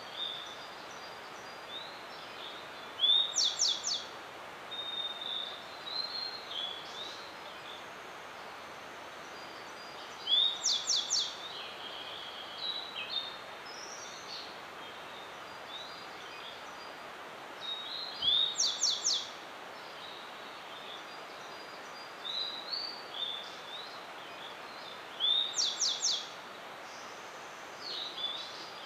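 Grey bunting singing: four short song phrases about seven to eight seconds apart, each an upslurred whistle followed by three or four quick, very high notes. Softer high chirps come between the phrases over a steady background hiss.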